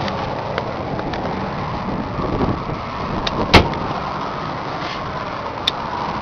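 Rushing wind and handling noise on the microphone, with a few light clicks and one sharp knock a little over halfway through.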